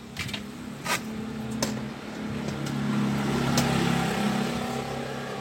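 A motor vehicle's engine running with a steady low hum that swells louder around the middle and then eases off, with a few light clicks over it.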